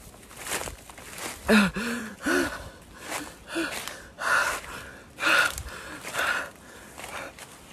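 A man sobbing, with gasping breaths in uneven bursts and a few short high whimpers, the loudest a little after a second in and around two seconds.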